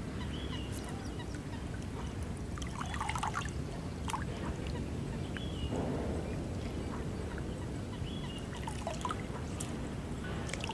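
Open-air marsh ambience: birds calling now and then, short high chirps every few seconds and a few brief lower calls, over a steady low background noise.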